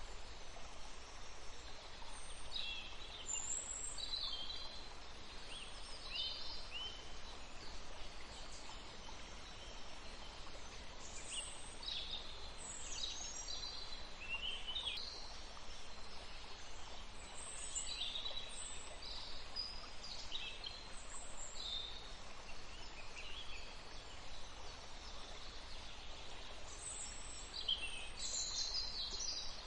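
Small birds chirping and calling in many short, high notes scattered throughout, over a steady background hiss.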